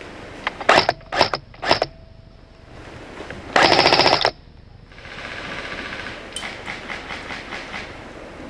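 Airsoft electric gun firing on full auto: three short bursts in quick succession about a second in, then a longer burst of under a second a little later, followed by fainter rapid rattling of more fire.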